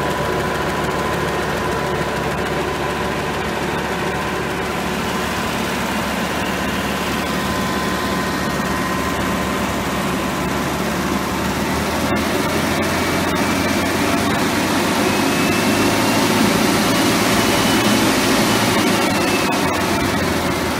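Tractor engine running with the PTO engaged, turning a PTO shaft that drives a right-angle gearbox, with a steady whine. About twelve seconds in the engine speeds up and the whine rises in pitch, then eases back down near the end. It runs smoothly, with no unusual noise from the PTO shaft in working position.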